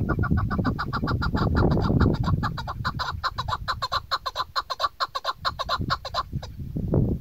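Chukar partridge calling: a fast, even series of short chuk notes, about six or seven a second, that stops about six seconds in, over a low rumbling noise.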